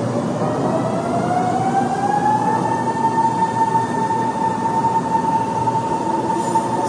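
Subway train running, with a steady rumble of wheels on track. Over it a whine climbs in pitch during the first three seconds, then holds steady.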